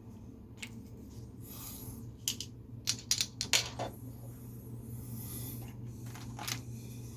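Drawing pens being handled: a quick run of sharp clicks and taps, the loudest sounds, from a little over two seconds in to about four seconds, with a few brief scratchy pen strokes on paper, over a steady low hum.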